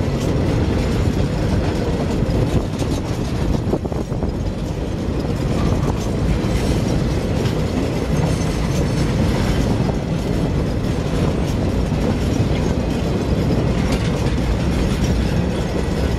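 Empty flat wagons of a freight train rolling past close by, their steel wheels running on the rails in a steady, unbroken noise.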